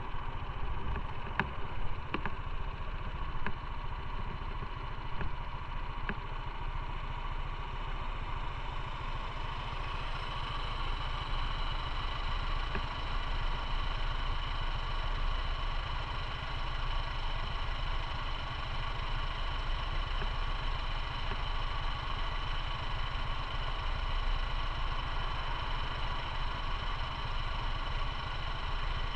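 Motorcycle engine idling steadily at an even pitch, with a few light clicks in the first several seconds.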